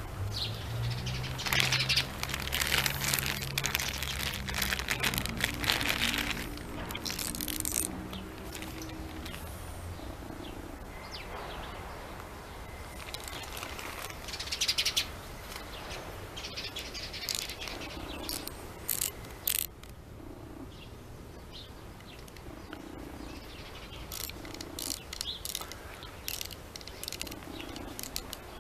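Birds chirping, with rustling of a plastic tool bag and a low hum through the first several seconds. Scattered sharp clicks near the end come from an 18-inch socket ratchet being handled.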